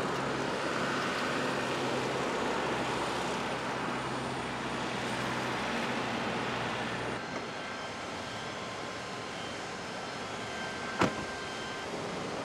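Jet aircraft noise on an airport apron, with a car's engine running under it for the first seven seconds until it cuts off. A single sharp knock comes near the end.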